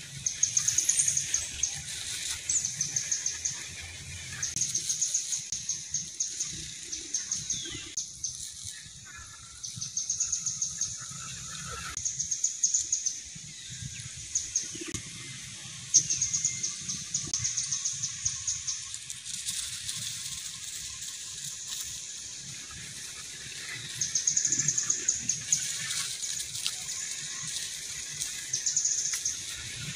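Forest ambience: a high-pitched, rapid trill repeating in phrases of a second or two, over a low rumble.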